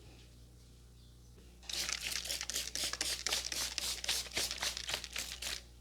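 Fast rhythmic rubbing of hands through hair on the scalp during a barber's head massage, a dry crinkly stroke about four times a second. It starts about two seconds in and stops just before the end.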